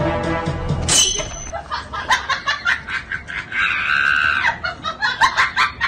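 People laughing in quick short bursts, with one held high-pitched shriek in the middle; music ends with a sharp noise about a second in.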